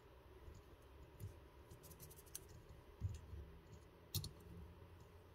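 Near silence broken by a handful of faint clicks and scratches from hands working fly-tying materials and tools at a vise. The sharpest click comes about four seconds in.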